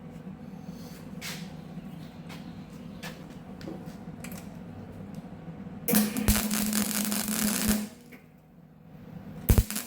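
Steady hum with faint crackles, then about six seconds in a welding arc on sheet steel crackles loudly for about two seconds and stops. A couple of sharp knocks near the end.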